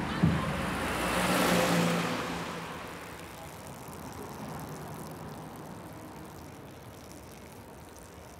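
A car passing by: its noise swells to a peak about a second and a half in, then fades away, leaving quiet street background.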